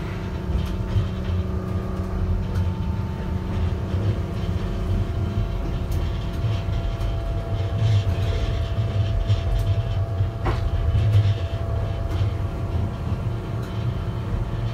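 Toden Arakawa Line streetcar running along its track, heard from inside the car: a steady low rumble with a faint steady hum, scattered light clicks from the wheels, and one sharper click about ten and a half seconds in.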